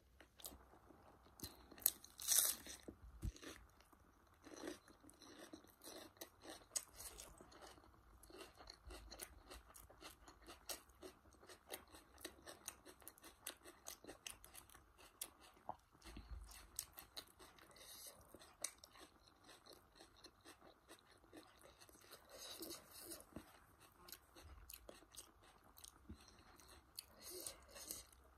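Close-miked chewing and crunching of a crisp lettuce leaf eaten with paneer curry: many short crunchy bites and wet mouth sounds, the loudest bite about two seconds in.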